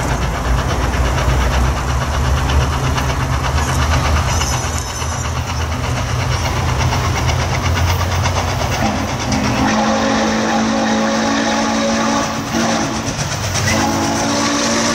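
Norfolk & Western 611, a Class J 4-8-4 steam locomotive, with a heavy low rumble as it runs. From about ten seconds in its chime steam whistle blows a long chord of several pitches, breaks off briefly, and sounds again near the end.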